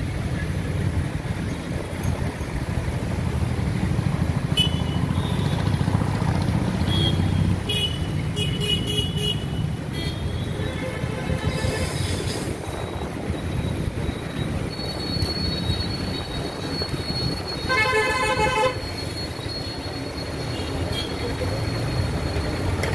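Busy city road traffic, with engines rumbling steadily and vehicle horns honking over it. A quick run of short high toots comes about a third of the way in, a longer horn about halfway, and a loud horn blast about three-quarters through.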